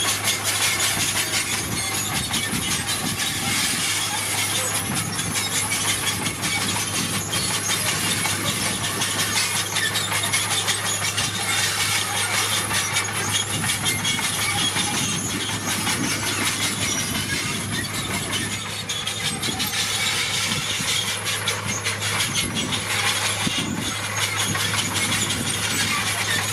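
Komatsu D41PX crawler dozer working: the diesel engine runs with a steady hum while the steel tracks and moving gravel keep up a dense, continuous clanking and grinding.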